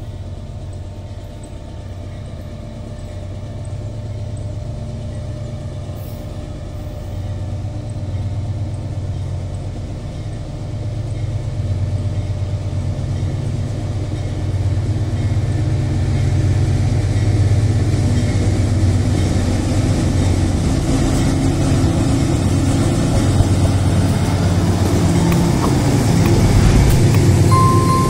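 Diesel freight locomotives of an empty iron-ore train approaching, a steady low engine rumble growing gradually louder until the lead units pass close by near the end.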